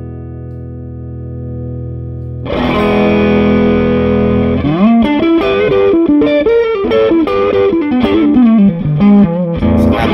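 Electric guitar, a Tokai Gold Star Sound Strat-style with three single-coil pickups, played through an SCW Audio Blackstone Overdrive pedal into an amp. A chord rings out and fades, a new chord is struck about two and a half seconds in, then a run of single-note lead lines, and another chord near the end. The overdrive is mild and clear, not aggressive.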